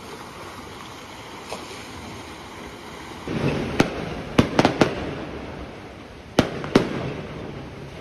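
Surf washing among shore rocks, then, about three seconds in, daytime fireworks bursting: about seven sharp bangs, several in a quick cluster and two more a second and a half later.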